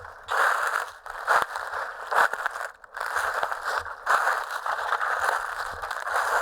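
Footsteps crunching through dry fallen leaves at a steady walking pace, a crackling crunch with each step, a little under one a second.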